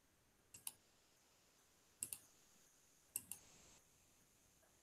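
Faint computer mouse clicks: three quick double clicks, a second or so apart.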